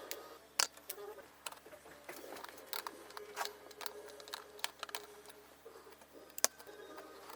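Irregular light clicks and taps of small tools and parts being handled during an electronics repair, with two sharper clicks about half a second in and near the end.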